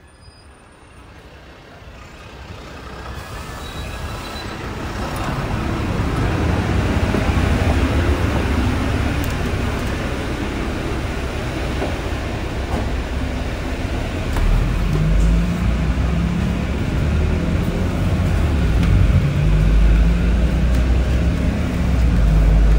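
Inside an Alexander Dennis double-decker city bus: a steady hum from the diesel engine and the air-conditioning, fading in over the first several seconds. A deeper, louder engine drone comes in about two-thirds of the way through.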